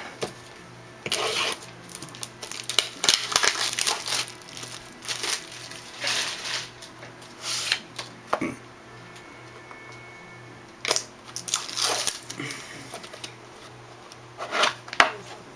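Plastic wrapping on a trading card box crinkling and tearing in irregular bursts as the box is opened.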